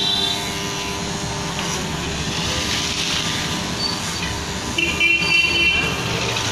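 Electric hair clipper running steadily with a low hum during a close army-style haircut, with two brief high-pitched tones, one at the start and one about five seconds in.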